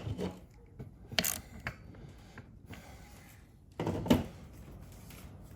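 A few knocks and clatters of chainsaw parts and tools being handled on a workbench: one right at the start, a sharper one about a second in, and a double knock around four seconds in.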